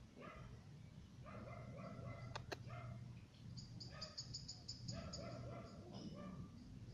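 A dog barking faintly, in short repeated calls. About halfway through comes a quick run of high chirps, and there is a single sharp click.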